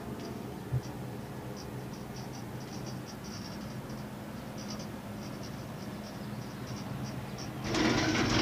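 Cable car gondola cabin running along its rope: a steady low hum with faint, irregular ticking and rattling. Near the end, a loud rumbling clatter of under a second, as the gondola runs over a support tower's rollers.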